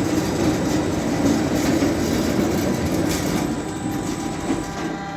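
Carpathian SMFA 110 band sawmill's saw head travelling automatically along its steel tracks: a rumbling, rattling run that grows quieter toward the end.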